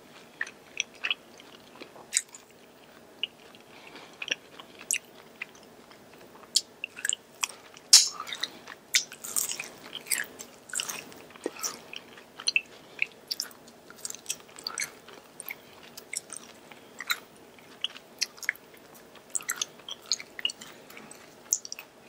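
Close-miked chewing and biting of Korean fried chicken: a run of short crunches and wet mouth clicks, busiest about a third of the way through.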